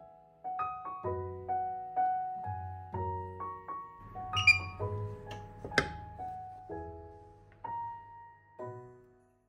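Background piano music: a slow, gentle melody of single notes and soft chords, each note ringing and fading, which stops just before the end.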